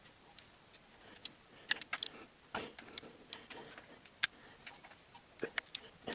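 Irregular light metallic clicks and clinks of hand tools on the oil pump cover bolts, spaced loosely, with a brief scrape about two and a half seconds in.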